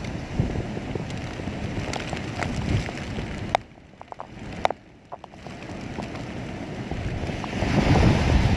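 Typhoon-force wind gusting and buffeting the microphone, with heavy rain on the street. About halfway through the wind drops off briefly, with a few sharp clicks, then the gusts build again and are loudest near the end.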